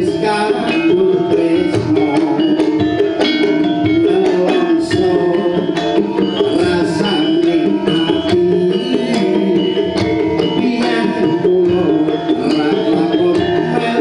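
Live campursari music played on a gamelan ensemble: struck metallophone and gong notes over a busy drum pattern, with no break.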